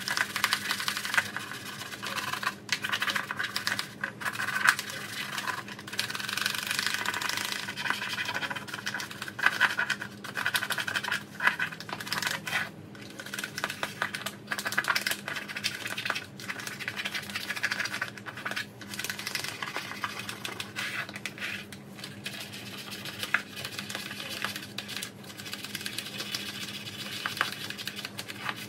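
Scrubbing a tackle box tray by hand to clean off rust and grime: a rapid, scratchy rasp in long runs, broken by short pauses every few seconds.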